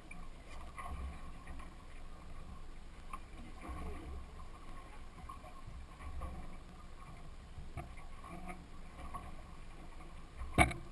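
Sea and boat noise on a small fishing boat's deck: uneven low rumbling of water against the hull, with scattered small knocks and clatter, and one sharp loud knock near the end.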